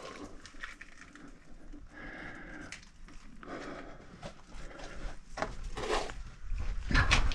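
Heavy breathing and irregular scuffs and scrapes from someone climbing on rock, building up, with a loud, deep rush of noise on the microphone near the end.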